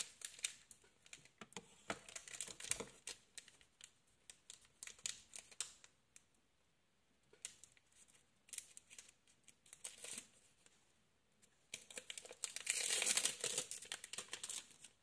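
Foil wrapper of a Pokémon Battle Styles booster pack crinkling and tearing as it is worked open by hand: scattered crackles with two short lulls, then a louder spell of crinkling near the end.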